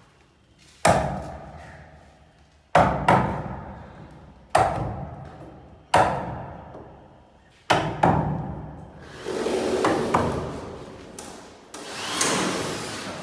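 A hammer striking a chisel held against a wooden panel: about six sharp blows a second or two apart, each ringing on in the bare room. A rising whirr comes near the end.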